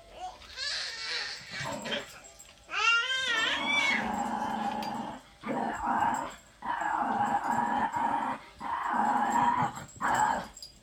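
Dog whining and howling: a sharply rising call about three seconds in, then four long drawn-out calls with short breaks between them.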